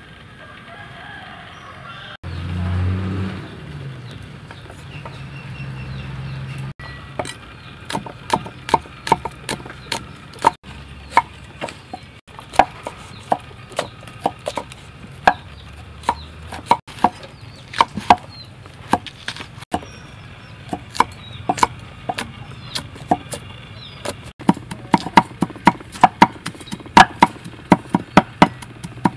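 Cleavers chopping fresh red chilies on round wooden chopping blocks: sharp, irregular knocks begin about seven seconds in and come faster near the end.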